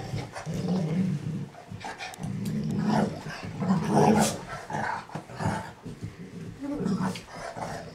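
Dogs growling in rough play: a series of low, rumbling growls, each under a second long, with a short sharp sound about four seconds in.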